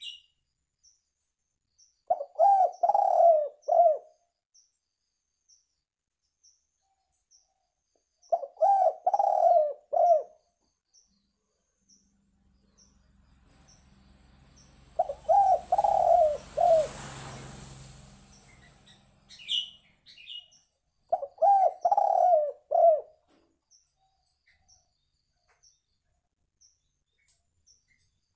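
Spotted dove (tekukur) cooing in four short phrases of about four coos each, one roughly every six seconds. Midway a rushing noise with a low hum swells and fades over several seconds, and faint high chirps tick in the background.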